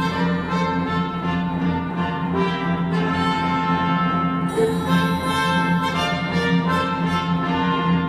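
Orchestral classical music played back from CD through a pair of Dali Helicon 400 MK2 loudspeakers, picked up at the listening seat. It is a dense passage of sustained chords with a steady held low note underneath.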